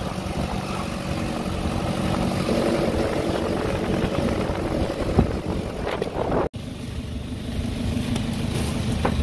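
A motor vehicle's engine running steadily with road noise while driving. The sound breaks off for an instant about two-thirds of the way through and then carries on.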